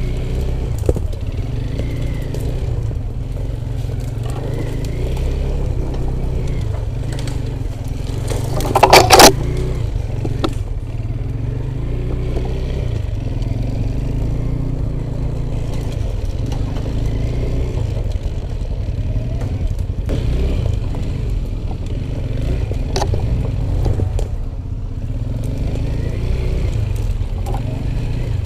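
Off-road motorcycle engine running at a steady low pace while riding over rough ground, with a brief loud clatter about nine seconds in.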